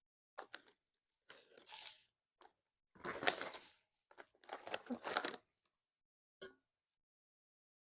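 Potato chips being crunched, with the chip bag rustling, in short irregular bursts. The loudest comes about three seconds in.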